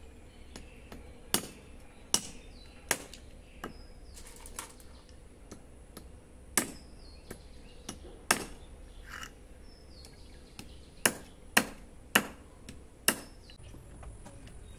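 A heavy knife chopping the ends off freshwater snail shells against a brick. About ten sharp chops come at uneven intervals, closer together near the end.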